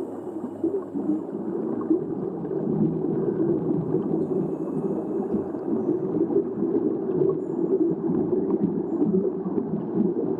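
Muffled underwater sound picked up by a camera below the surface: a steady low rushing of water with scattered faint crackles of bubbles.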